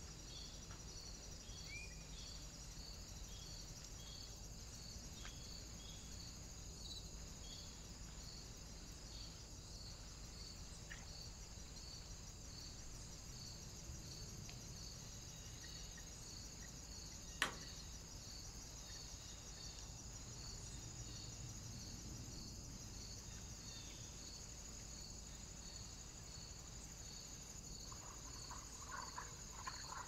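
Faint, steady chirping of crickets: evenly spaced high chirps over a constant high trill. There is one sharp click a little past halfway, and a few short faint notes near the end.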